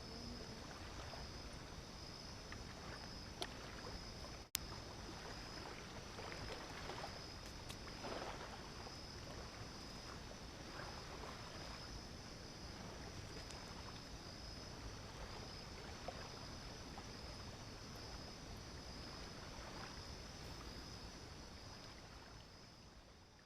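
Night insects, likely crickets, trilling steadily in a high, faintly pulsing tone over a low wash of water and outdoor noise. There is one sharp click about four and a half seconds in, and the sound fades out at the end.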